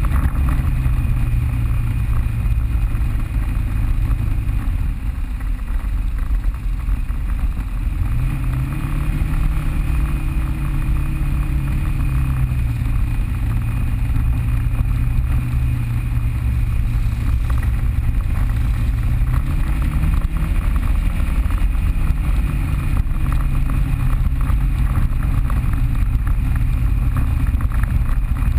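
Off-road vehicle's engine running while riding, its pitch climbing about eight seconds in and again about twenty seconds in, easing back between, over a steady low rumble.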